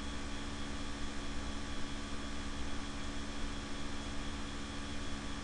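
Constant hum of a laptop cooler's fans: two steady low tones over an even hiss.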